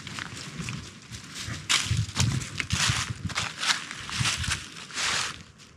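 Footsteps crunching and rustling through a deep layer of dry fallen leaves, in uneven crunches that die away near the end.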